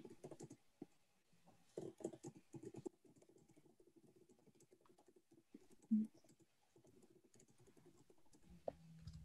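Faint typing on a computer keyboard, in two short runs of key clicks within the first three seconds. A brief low sound about six seconds in.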